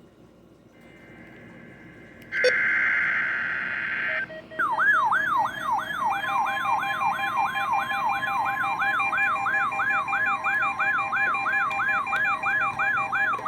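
NOAA Weather Radio required weekly test alert. About two seconds in, a short screeching burst of SAME digital header data sounds. Then a receiver's alarm siren warbles at about three sweeps a second, with the steady 1050 Hz warning alarm tone under it from about six seconds in.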